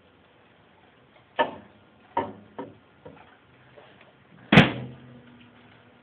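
A few knocks and clunks of handling, then a loud slam about four and a half seconds in with a short ring after it: the door of a Panasonic microwave being shut.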